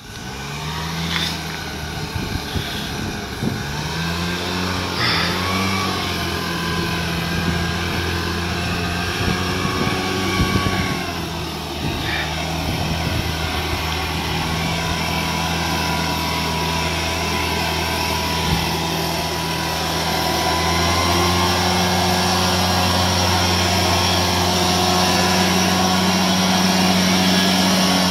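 Backpack leaf blower's engine running steadily with the rush of its air stream, growing louder about two-thirds of the way through.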